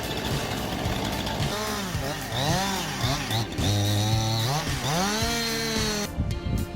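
Chainsaw engine revving up and down several times, its pitch rising and falling with the throttle as it cuts.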